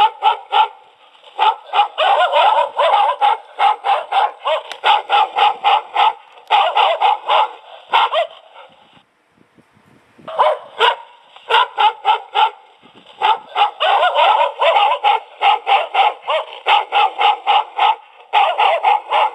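Recorded dog barking played very loud through the small speaker of an infrared motion-sensor voice alarm, its volume turned to full: rapid runs of barks, with a pause of about a second and a half near the middle.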